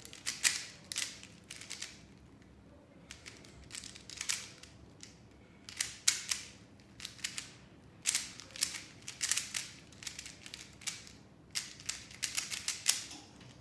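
A Rubik's Cube being turned fast by hand: runs of quick plastic clicks and clacks as the layers snap round, with short pauses between runs of moves.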